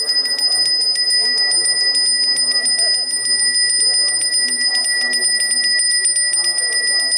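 A Balinese priest's brass hand bell (genta) rung rapidly and without a break, a bright, steady ringing tone, with voices faintly beneath it.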